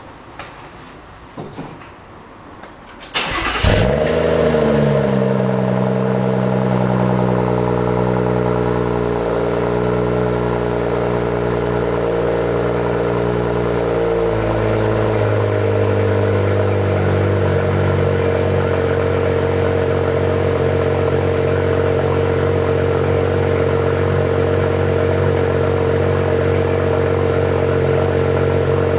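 BMW M135i cold-starting on its stock exhaust: a few faint clicks, then about three seconds in the engine cranks and catches with a short rev flare. It settles into a steady fast cold idle, which drops slightly around fourteen seconds in.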